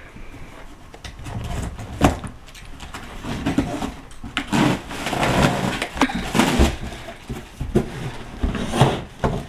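Cardboard shipping box being opened by hand: irregular scraping, tearing and rustling of cardboard as the top is worked open and the flaps folded back, with a few sharp knocks.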